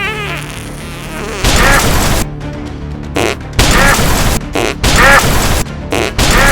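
Cartoon sound effects for explosive hiccups: a short falling tone, then a run of loud, warbling bursts, the longer ones about every second and a half with shorter ones between.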